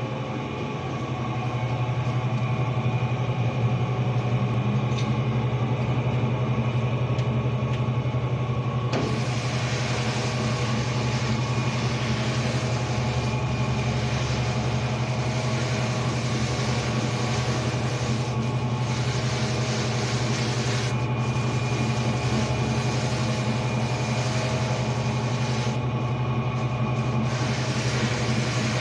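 Sneaker-washing machine running with a steady, loud motor hum. About nine seconds in, a broad hiss joins the hum and carries on, with a few brief dips.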